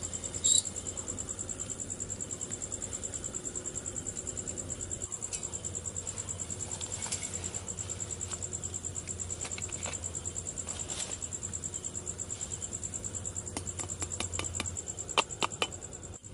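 A night insect chirping steadily, a high-pitched trill pulsing fast and evenly. Sharp metallic clinks from camp cookware being handled stand out about half a second in and again in a cluster of lighter clicks near the end.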